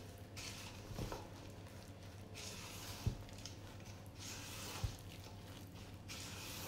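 A spatula folding thick carrot cake batter in a mixing bowl: soft squelching and scraping, with three short knocks.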